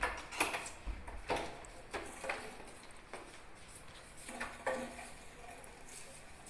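A broom knocking and scraping against a wooden door, making a string of irregular sharp knocks and clatters, some with a short ring, that thin out after about five seconds.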